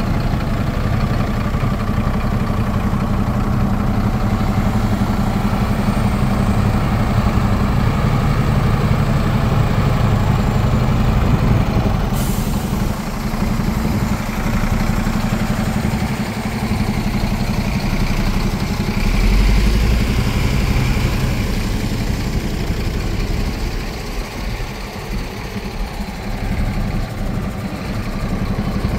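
A gas tanker truck's engine idling steadily with a low, even note. A sharp click comes about twelve seconds in, and a brief low rumble about two-thirds of the way through.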